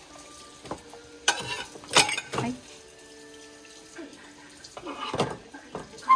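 Kitchen tap running into a sink while dishes are washed, with a few sharp clinks and clatters of dishware, the loudest about two seconds in.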